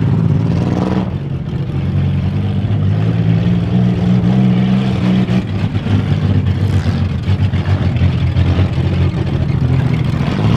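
Several demolition derby cars' engines running loud, revving up and down as they drive and ram in the arena, with a rise in revs about a second in.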